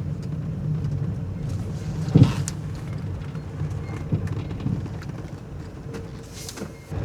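Renault Trafic van moving slowly, its engine giving a steady low rumble, with a single short knock about two seconds in.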